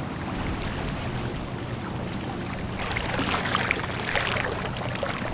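Shallow sea water lapping and sloshing around a wading angler's body, with a steady low rumble. Brighter splashing about three seconds in.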